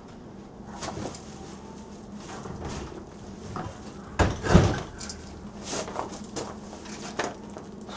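Scattered knocks and clatter of heavy objects being handled, the loudest pair of knocks about four seconds in, over a faint steady hum.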